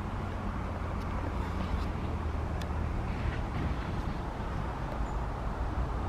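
Steady low outdoor rumble, with a few faint high ticks.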